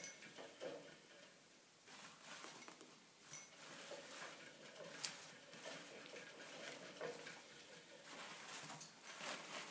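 A degu rustling and shuffling sheets of kitchen paper towel and hay bedding as it nests, with faint, irregular crinkles and small scratches.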